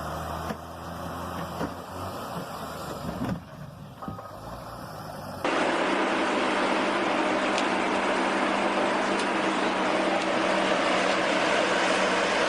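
Heavy vehicle engines running. About five and a half seconds in, the sound cuts abruptly to a louder, steadier engine noise with a constant low hum.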